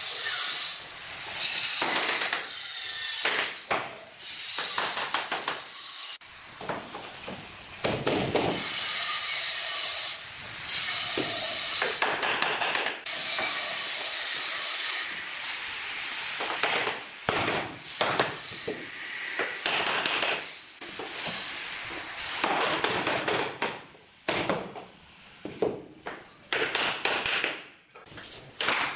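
Laminate floor planks being laid and fitted: repeated scraping as planks slide over the floor and underlay, with sharp knocks and taps as their edges are locked together.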